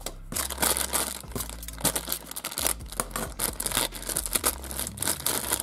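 Thin plastic toy packet being crinkled and torn open by hand, a dense run of crackles throughout.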